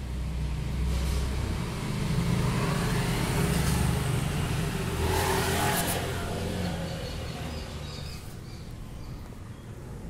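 A motor vehicle passing: a low rumble with road noise that builds over the first few seconds, is loudest a little past the middle, and fades away towards the end.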